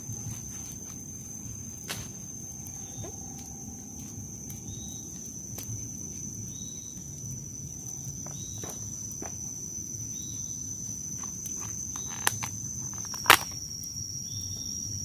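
A steady, high-pitched insect drone runs throughout and drops slightly in pitch near the end. Over it come the rustle and sharp clicks of plastic food containers being handled, with one loud snap near the end.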